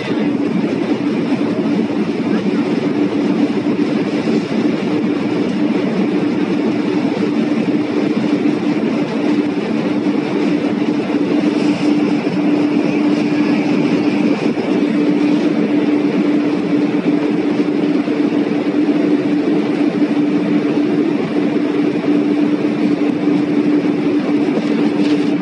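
Jet airliner's engines at takeoff power during the takeoff roll, heard from inside the cabin: a loud, steady rush of noise with a constant low hum running through it.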